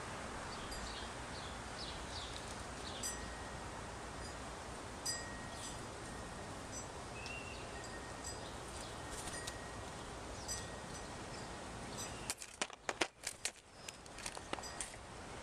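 Steady outdoor hiss with scattered faint, high tinkling notes. About twelve seconds in comes a quick flurry of loud flaps and clicks as a blue jay flies in and lands on the rim of the feeder dish.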